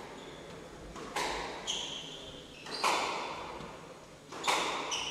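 Squash rally: the ball is struck by rackets and smacks off the court walls, three loud hits about a second and a half apart with lighter knocks between, each ringing on in the enclosed court. Short high squeaks of shoes on the wooden floor follow some of the hits.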